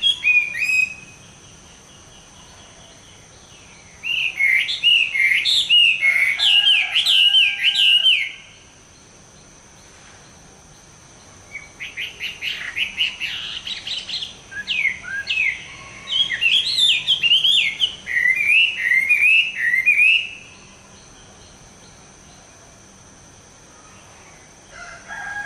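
Chinese hwamei singing in two long bursts of fast, repeated whistled notes, the first about four seconds long and the second about eight, with pauses between.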